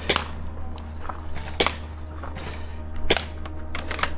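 Airsoft guns firing: single sharp cracks about every second and a half, then a quick string of several shots near the end.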